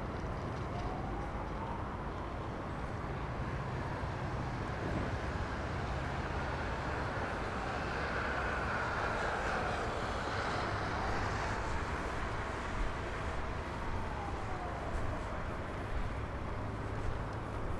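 Road traffic passing on a city street: a steady rush of engines and tyres that swells as a vehicle goes by about halfway through, then eases off.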